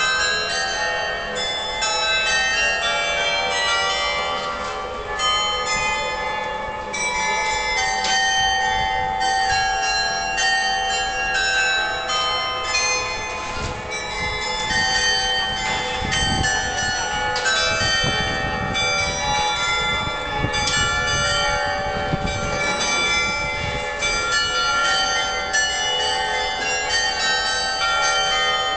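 The carillon of the Béthune belfry playing a tune: many tuned bells struck in quick succession, their notes ringing on and overlapping.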